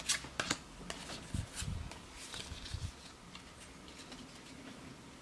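Faint handling noises: a few soft clicks and light rustles of fingers moving trading cards and card packaging on a table, in the first three seconds, then almost quiet.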